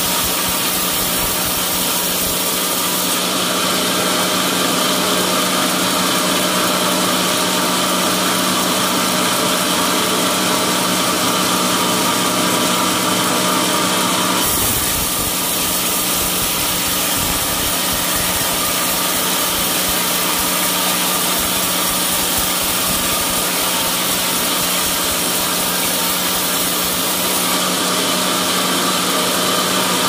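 Vertical band sawmill running and ripping through a beam of old, dry teak: a loud, steady machine drone with a high hiss from the blade in the cut. The tone shifts once about halfway through.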